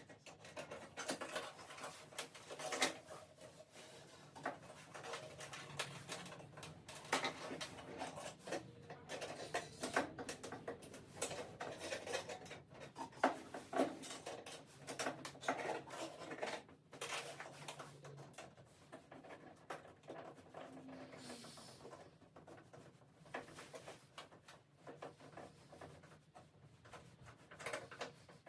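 Hands fitting accessories to a diesel heater: an irregular run of clicks, taps and rubbing as parts are handled and hooked up.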